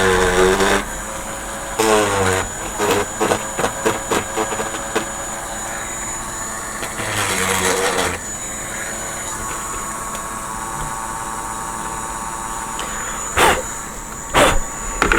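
Small electric drill or rotary tool boring through styrene plastic, its pitch sagging each time the bit bites and recovering in between, then running freely at a steady whine. A couple of sharp knocks near the end.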